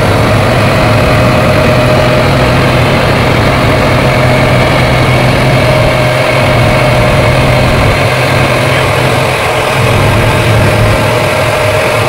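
Gleaner R40 combine harvester running at harvesting speed while cutting barley, its engine and threshing machinery making a steady low hum with a constant whine above it.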